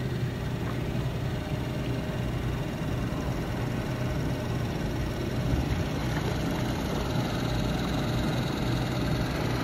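A boat's gasoline motor running steadily under way: an even drone with a low hum, no change in speed.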